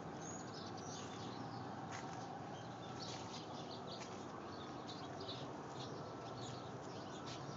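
Small birds chirping in quick, scattered calls over a steady faint background noise.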